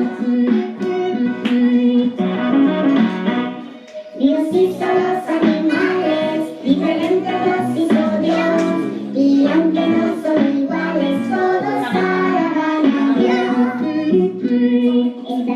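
Children singing a song together over instrumental accompaniment, with a short break in the singing about four seconds in.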